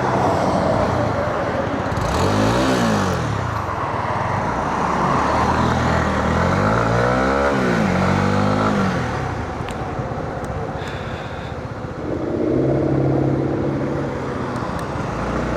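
Honda CB125R's single-cylinder engine under way on a test ride after an oil change, its pitch climbing and dropping sharply twice through the revs, then holding steady near the end, over a constant rushing noise.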